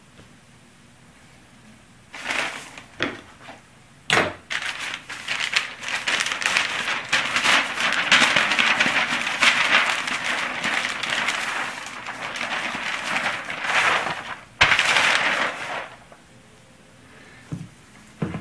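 Woven carbon fibre cloth and its wrapping being handled and unrolled. There are a few short rustles, then a dense run of crisp rustling and crackling from about four seconds in to about sixteen seconds.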